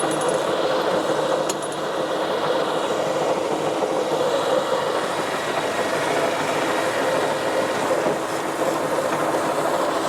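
A Brown & Sharpe No. 2 screw machine lathe running under power: a steady mechanical clatter of its drive and gearing, with a sharp click about a second and a half in.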